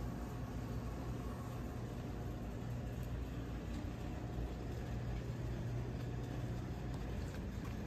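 Steady low machinery hum of the shop's background, with a few faint ticks.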